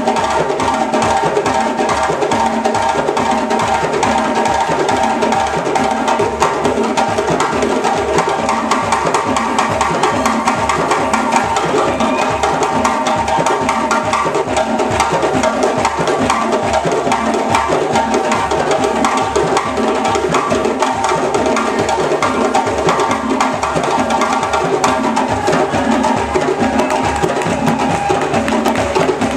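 West African drum ensemble of several djembes and larger bass drums playing together in a dense, steady interlocking rhythm.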